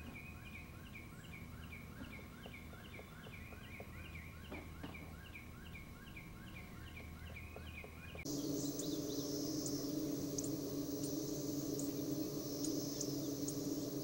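Red-bellied woodpecker calling a rapid series of short, downward-sliding notes, about two a second. About eight seconds in, the sound cuts suddenly to a louder, different recording: a steady high hiss with regular sharp ticks over a low hum.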